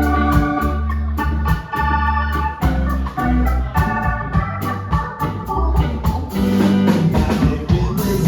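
Music: sustained organ-like keyboard chords over a bass line, with a steady drum beat.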